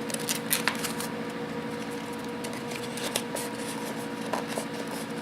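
Thick folded paper crinkling and crackling in a few short scattered clicks as a paper bird beak is handled and popped open, over a steady hum.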